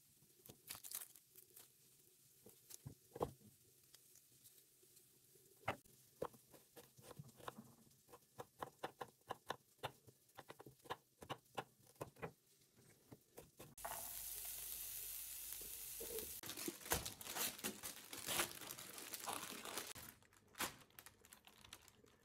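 A kitchen knife chopping an onion on a wooden cutting board: scattered taps at first, then a quick run of chops, several a second, from about 8 to 13 seconds in. About 14 seconds in, a steady hiss with crackling starts suddenly and stops about 20 seconds in.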